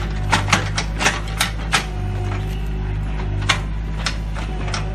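Mini excavator engine running steadily as the bucket digs through soil and broken brick rubble, with a quick run of sharp clacks and knocks in the first two seconds and a few more scattered later.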